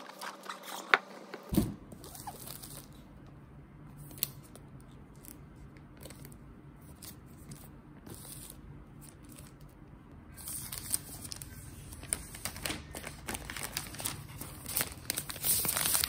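Light taps and a knock as a laptop box is handled, then the paper wrap around a new MacBook Air rustling and crinkling as it is pulled off, loudest near the end.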